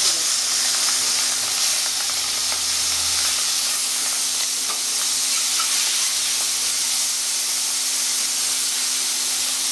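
Turmeric-coated prawns going into hot mustard oil in a kadai and frying with a steady sizzle that starts suddenly as they hit the oil. A spatula turns them near the end.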